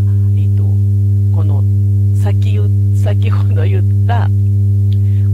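Loud, steady low electrical hum with a ladder of evenly spaced overtones above it: a mains-hum noise fault in the recording's audio chain, running under a woman's talking.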